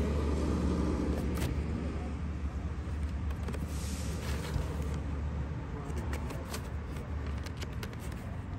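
Cardboard record sleeves of vinyl LPs being flipped through by hand in a plastic bin: scattered soft clicks and a short cardboard slide about four seconds in, over a steady low rumble.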